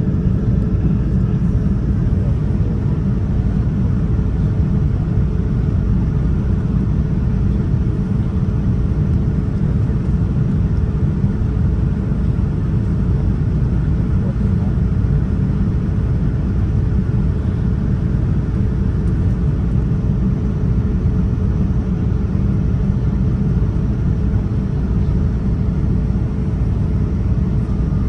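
Steady cabin noise inside a Boeing 787-9 airliner: an even low rumble of engines and airflow, with a faint steady hum above it.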